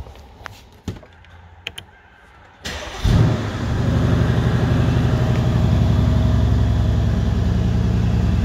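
Mercedes-Benz CLS63 AMG's 5.5-litre biturbo V8 starting from the push button, heard from inside the cabin: a few light clicks, then about two and a half seconds in a short crank and a loud flare of revs that settles into a steady idle at about 1000 rpm.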